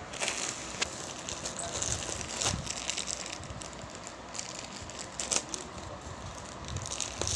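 Clear plastic wrapping around a saree crinkling and rustling as hands press on it and open it, with a few sharp clicks and taps.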